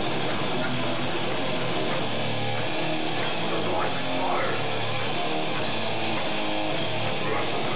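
Death metal band playing live: distorted electric guitars riffing over bass and drum kit, loud and continuous.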